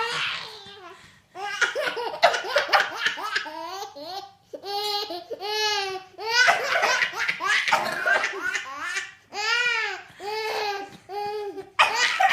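A baby laughing in about eight bouts of belly laughs with short pauses between them.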